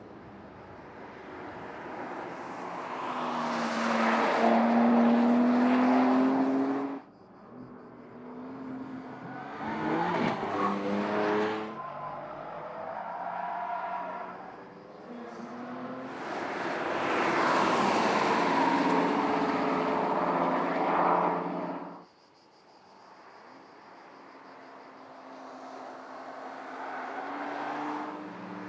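Porsche Panamera 4S E-Hybrid's twin-turbo V6 driven hard around a track, several passes that build up with engine pitch rising and then cut off suddenly at edits, with loud tyre noise in the passes.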